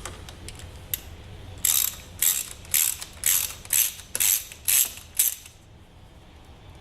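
Hand ratchet with a 10 mm socket backing out a motorcycle battery terminal bolt: about eight short ratcheting strokes at roughly two a second, each a quick burst of pawl clicks, then it stops.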